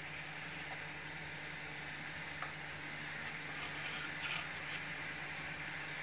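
Sugar syrup boiling in a nonstick frying pan: a steady soft fizzing of small bubbles with a few faint pops, a little busier about four seconds in.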